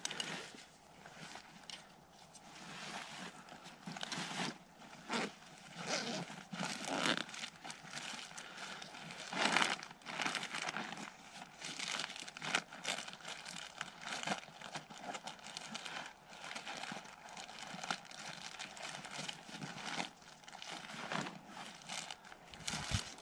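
Footsteps crunching and rustling through dry leaf litter on the forest floor, an irregular run of crackling steps.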